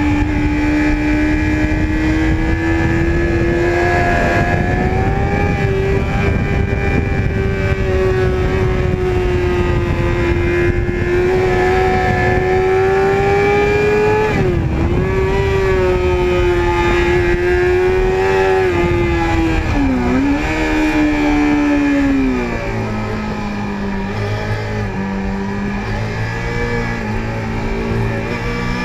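Sport motorcycle engine heard from on board at speed, held at high revs with slight rises and two brief dips about halfway and two-thirds through, then dropping to lower, quieter revs for the last six seconds or so, with wind noise underneath.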